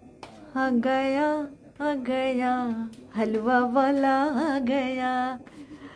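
A woman singing a melody in long, wavering held notes, in three phrases with short breaks between them.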